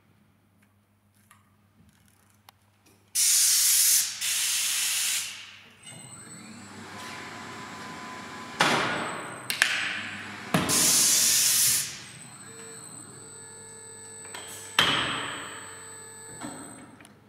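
Pneumatic tyre changer letting out compressed air in loud hissing bursts, several times, as its pedal-operated valves work. A steady mechanical hum runs under them from about six seconds in.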